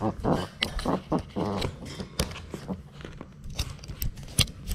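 Labrador puppy mouthing and biting a GoPro camera right against its microphone: irregular close knocks, scrapes and crunching of teeth on the camera housing, with a few sharper knocks in the second half.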